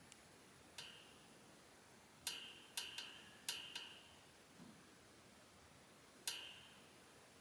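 Light clicks and clinks of small hard objects knocking together, about seven in all. They come singly and in quick pairs, and each rings briefly.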